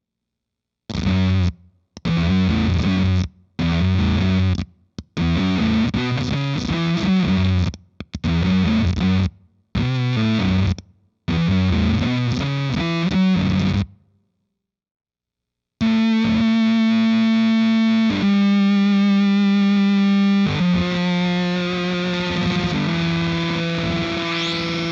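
1991 Ibanez Jem electric guitar played through a Rainger FX Dr. Freakenstein fuzz pedal into a Marshall Vintage Modern amp, giving a heavily fuzzed sound. First comes a choppy riff of short chords, each cut off sharply into silence. After a brief pause, long sustained notes follow, stepping down in pitch.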